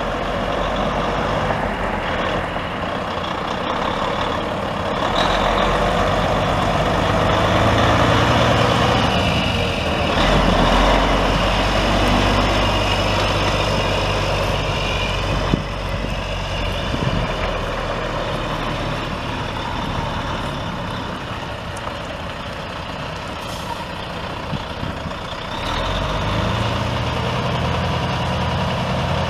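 Volvo VNL semi truck's D12 12.1-litre inline-six turbo diesel running, its level swelling and easing off a few times.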